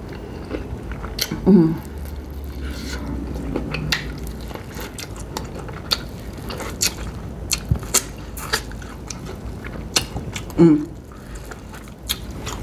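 Close-up eating sounds of a person biting and chewing sauce-coated corn on the cob: irregular wet smacking clicks of mouth and kernels. Two short hums of the eater's voice, about a second and a half in and again near the end.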